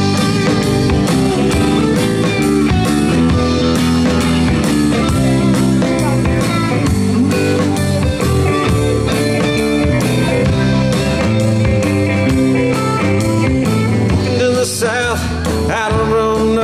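Live country-rock band playing an instrumental break: electric guitars over bass and a steady drum beat.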